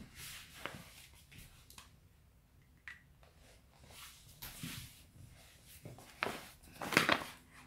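Paper gift bag handled, giving a few soft, short rustles and crinkles, the loudest near the end.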